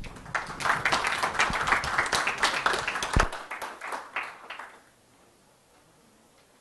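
Small audience applauding, dense clapping that dies away after about five seconds, with a single low thump about three seconds in.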